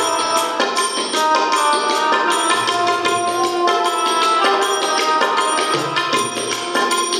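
Instrumental bhajan music: Indian banjo (bulbul tarang) and harmonium play a melody of held notes over tabla drumming and the steady ring of manjira hand cymbals.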